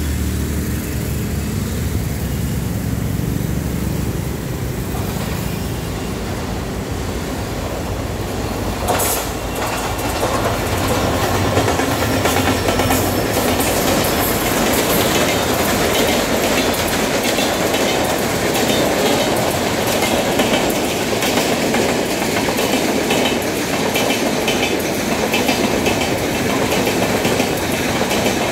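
Twin WDG-4 diesel-electric locomotives, each with a two-stroke V16 engine, pass with a deep engine drone in the first few seconds. After a sharp knock about nine seconds in, the train's wheels clatter rhythmically over the rail joints as the coaches roll by.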